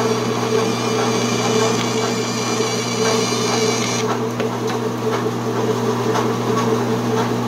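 Vertical band saw running steadily with its motor humming while the blade cuts through HDPE plastic sheet, a high whine over the hum. The whine stops abruptly about four seconds in as the circular cut finishes and the saw runs on, with a few light clicks.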